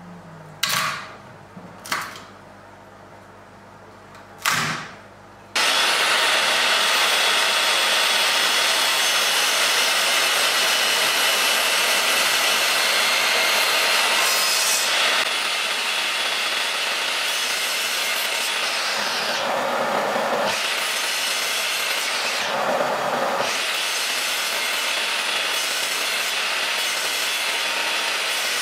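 A few sharp knocks, then about five seconds in a Makita miter saw starts up suddenly and runs steadily while cutting a row of closely spaced kerfs into a pine board, its sound shifting slightly a few times.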